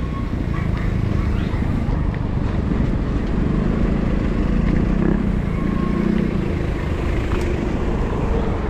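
Wind buffeting an action camera's microphone during a bicycle ride: a steady low rumble mixed with road noise.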